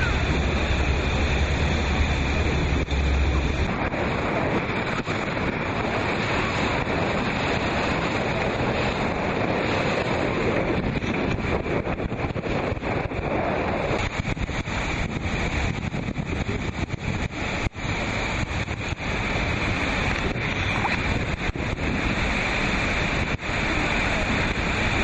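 Loud rushing water of flooded river rapids heard from a moving motorboat, with wind buffeting the microphone; the sound dips out briefly many times in the second half.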